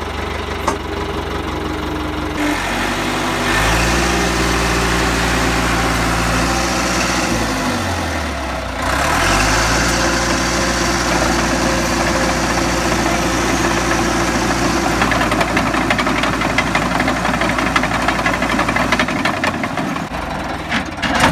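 1980 Caterpillar D3 dozer's diesel engine running. Its pitch steps up about three seconds in, dips and recovers briefly around eight seconds, then holds steady.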